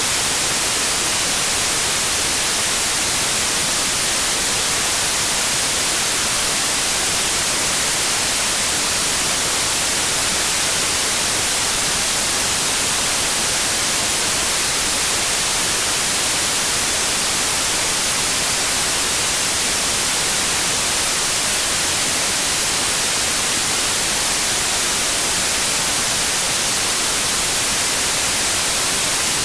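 Steady, even white noise, a constant hiss brightest in the high frequencies, with no change in level.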